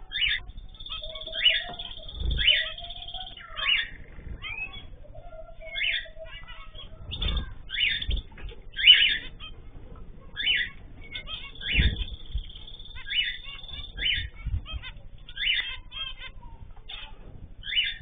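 Zebra finches calling in an aviary: short, nasal beeping calls repeated about once a second, with a few low thumps and a lower held note now and then.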